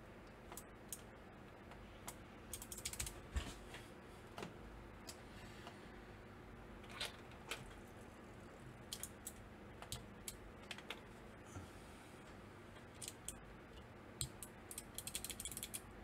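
Plastic keycaps clicking and tapping as they are pressed onto the switches of a mechanical numpad calculator and picked out of a plastic keycap tray. The clicks come singly and in small clusters, with a quick rattle of clicks near the end.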